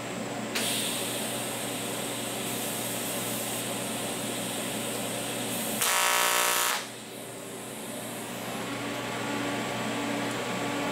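TIG welding arc on 7075 aluminum plate: after a steady hiss, the arc buzzes loudly for about a second, six seconds in, then cuts off abruptly. This is a short, hot spot weld with the amperage chopped off quickly. A welding machine's cooling-fan hum runs underneath.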